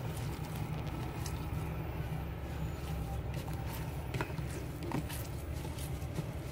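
Hands squeezing and mixing a moist mix of chopped leaves and grated coconut in a plastic bowl, giving soft scattered crackles and squishes, over a steady low rumble.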